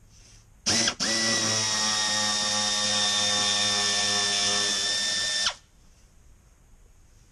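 A handheld power tool backing out a small 7 mm underbody fastener: a short blip, then it spins up and runs at a steady whine for about four and a half seconds before cutting off suddenly.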